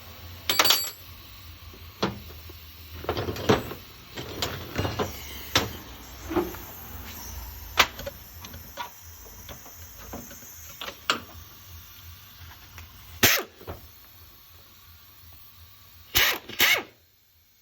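Irregular knocks, clicks and clanks of tools and metal parts being handled, over a low steady hum that cuts off near the end.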